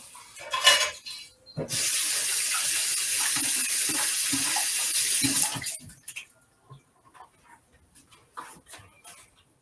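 Dishes and utensils clink, then a kitchen faucet runs steadily for about four seconds and shuts off abruptly, followed by a few light knocks of kitchenware.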